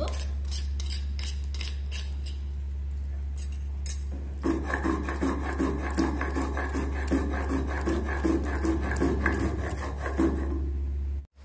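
Stone roller scraping back and forth on a flat stone grinding slab (sil-batta), grinding wet raw-mango and mint paste for chutney. Lighter scraping at first, then about two firm grinding strokes a second from about four seconds in, cutting off suddenly near the end.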